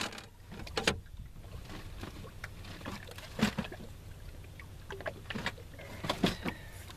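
Rummaging through a boat's storage compartment: a few scattered knocks and clatters as items are moved about, over a steady low rumble.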